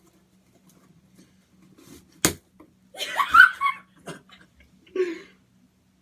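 A pen jabbed into a taped cardboard box: one sharp knock about two seconds in, then scraping and tearing of tape and cardboard, with a shorter scrape near the end.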